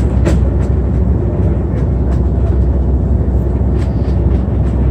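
Airbus A330 airliner cabin noise: a loud, steady low rumble with scattered short rattles and clicks.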